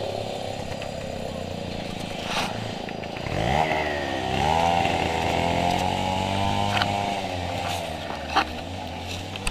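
Stihl 070 two-stroke chainsaw running at a low steady speed, then revved up sharply about three and a half seconds in. It holds at high speed for a few seconds and eases back near the end. A few sharp clicks are heard over it.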